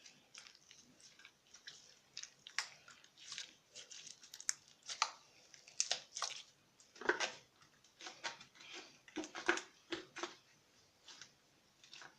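Slime being kneaded and stretched by hand, with irregular wet squelches, clicks and little popping crackles as air pockets burst.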